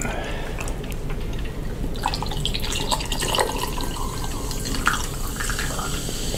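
A soft drink poured from a plastic bottle into a glass, the liquid splashing and trickling, mostly from about two seconds in.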